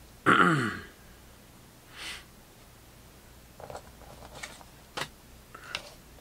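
A short, loud breathy vocal sound falling in pitch, like a snort or sigh, about a third of a second in, followed by a few faint slides and taps of cardboard trading cards being handled and laid on the table.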